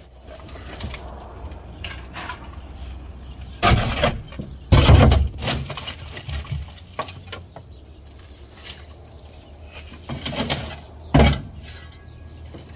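Steel shovel scraping and scooping dirt, leaves and rusty debris off a car's rusted sheet-metal floor pan, with several louder scraping clanks, the loudest about five seconds in and again about eleven seconds in.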